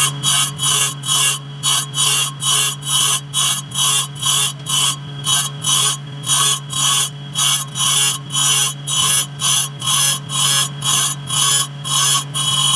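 A machine running with a steady low hum and a rhythmic hissing stroke about three times a second.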